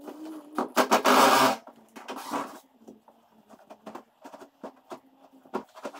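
Hand tools working metal parts in a truck's rear wheel well: scattered clicks and rattles, with a loud rasping burst about a second in and a shorter one near the middle.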